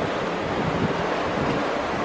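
Wind buffeting the microphone while a Walt Disney World monorail train passes overhead on its elevated beam, a steady noise with no clear tone.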